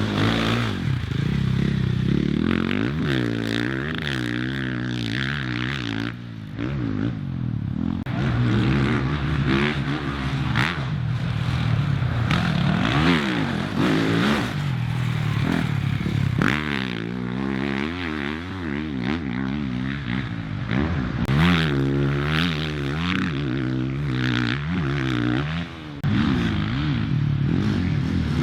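Off-road motorcycle engines revving, their pitch rising and falling again and again as the bikes accelerate, shift and pass.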